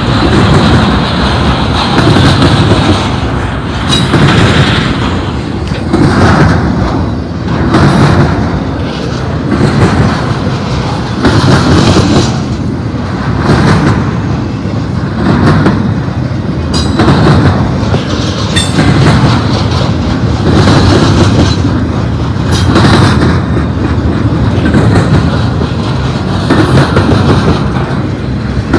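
The steel wheels of an intermodal freight train's cars roll past close by on the rail. The sound surges with a clatter about every two seconds as each set of wheel trucks goes by.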